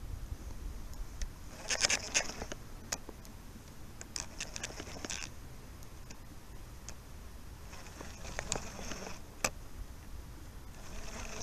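Close, irregular rustling and sharp clicks from a hand working a fishing reel's handle right against the microphone, coming in four short spells.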